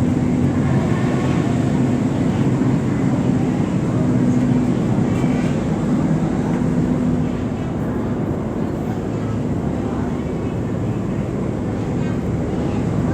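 River ferry's engine running with a steady low drone and hum, dropping a little in level about halfway through.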